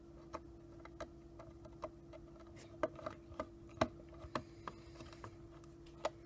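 Scattered light clicks and taps of a camcorder's plastic casing being handled and pried at, its cover still held on by snaps. A faint steady hum runs underneath.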